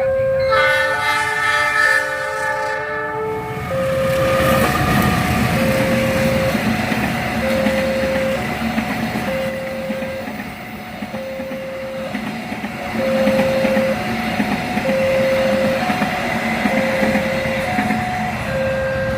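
A diesel train's horn sounds a chord for about three seconds at the start, then the train runs past the crossing with a steady rumble of wheels on rail. Throughout, the level-crossing warning signal repeats, alternating between a lower and a higher tone.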